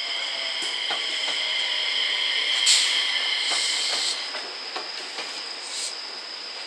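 JR West 227 series electric train running past, its wheels clicking over rail joints, with a loud burst of hissing a little before the middle.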